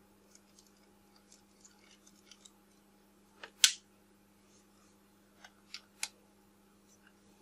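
Small metallic clicks and ticks of a precision screwdriver and tiny screws on the metal bayonet mount of a Nikon Nikkor 70-300mm lens as the mount's screws are taken out. There is one sharp click about three and a half seconds in and three quicker clicks around six seconds.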